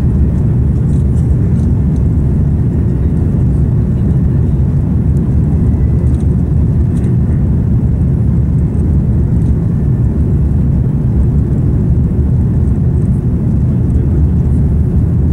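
Steady low rumble heard inside the cabin of a Finnair Airbus A340-300 climbing out after takeoff: its four CFM56 engines running with air rushing past the fuselage.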